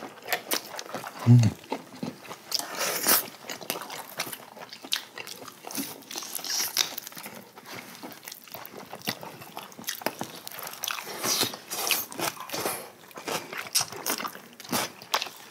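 Close-up eating sounds of roasted chicken legs being bitten, torn from the bone and chewed: many short clicks, smacks and crunches. A brief low sound about a second in is the loudest moment.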